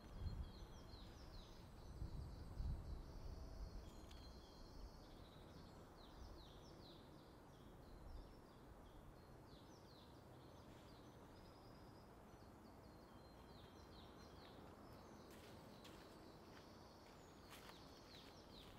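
Woodland birdsong: many small birds chirping and twittering over a quiet background, with a low rumble in the first few seconds. Near the end, footsteps crunch through dry leaf litter.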